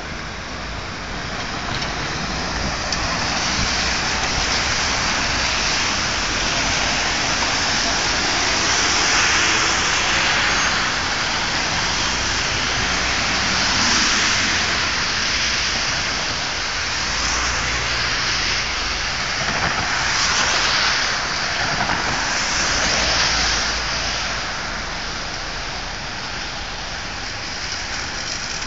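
Steady hiss of rain and of car tyres on a wet road, swelling and fading several times as vehicles pass.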